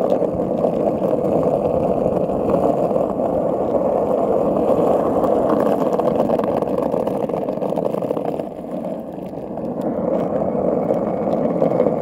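Skateboard wheels rolling fast over asphalt: a steady, gritty rumble that eases a little about eight seconds in and then builds again.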